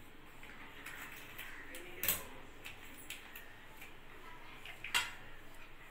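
A few light clicks and knocks over faint room tone, with two sharper ones about two seconds in and near the end.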